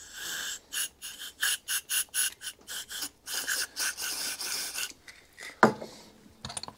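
Aerosol can of penetrating lubricant sprayed through its red straw nozzle onto a stuck carburettor jet: a rapid run of short squirts, about four a second, then a longer spray. A single knock near the end.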